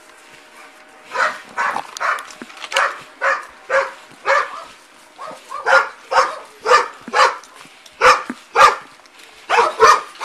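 A dog barking over and over, starting about a second in and settling into roughly two sharp barks a second, coming faster near the end.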